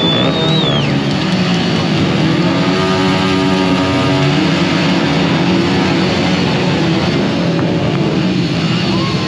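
Motor vehicle engines running steadily, with music mixed in.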